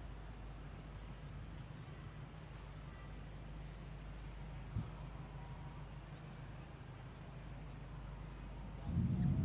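Insects chirping in short, repeated high bursts over a steady low rumble of forest ambience. There is a single soft knock about five seconds in, and a louder low rumble comes in near the end.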